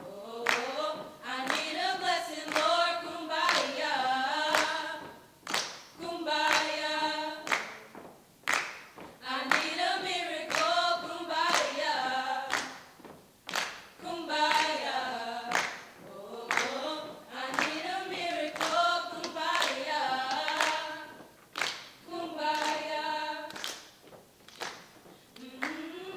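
A choir sings unaccompanied in phrases with short breaks between them. Hand claps keep a steady beat throughout.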